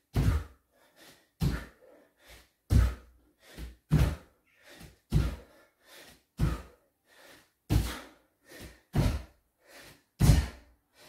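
Bare feet landing on the floor during squat jumps, forward and back: a loud thud about every second and a quarter, with a softer landing between each.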